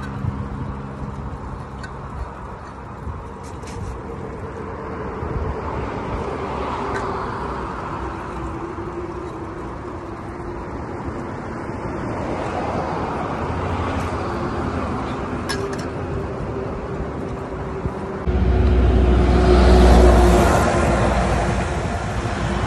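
Road traffic passing a cyclist on a highway climb: a steady rumble of vehicles, then one passes close about 18 seconds in, loudest near the end and then fading.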